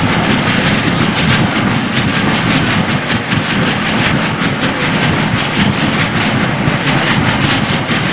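Geothermal steam jet venting loudly and steadily through a crater in saturated beach sand, a sand volcano driven by overheated reservoir water flashing to vapour and throwing out sand.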